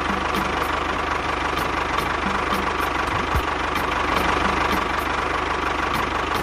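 A small engine running steadily at idle, with a fast, even knocking beat.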